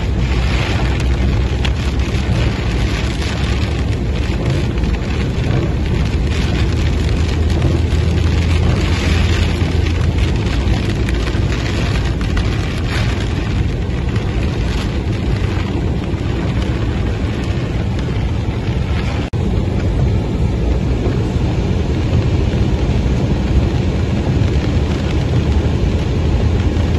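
Heavy rain on a moving car, heard from inside the cabin: a loud, steady rumble of rain on the roof and windshield, mixed with tyre and road noise on the flooded street.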